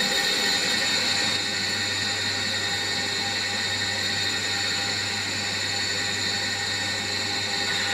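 Targa surface grinder running: the balanced grinding wheel makes a light spark-out pass over a hardened steel parallel as the table traverses. It is a steady whine with several high tones over a low hum.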